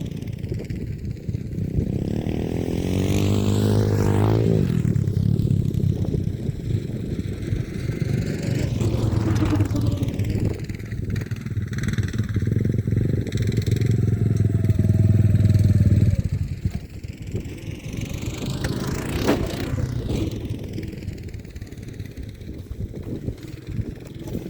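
Small off-road vehicle engine revving up about three seconds in and running hard under throttle. About sixteen seconds in it backs off and fades to a lower, fainter running note.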